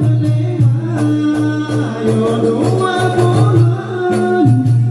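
Acehnese rapa'i frame drums played in a steady beat under male singing: a melodious rapa'i song sung as a duet.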